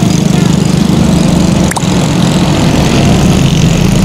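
Bus engine running loudly and steadily, with one sharp click a little under two seconds in.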